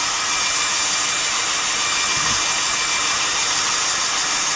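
Handheld hairdryer running steadily on wet watercolour paint to dry it: an even rush of blown air with a steady high motor whine.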